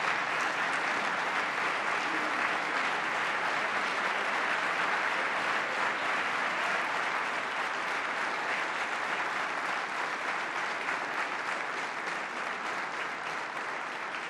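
A large crowd applauding, dense and steady, slowly easing off toward the end.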